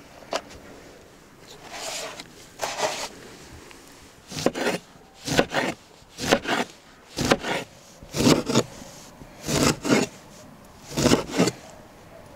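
A large chef's knife slices a lemon into rounds on a wooden cutting board. After some softer handling sounds, there are about seven evenly spaced cuts, roughly one a second, each a quick double knock of the blade going through and hitting the board.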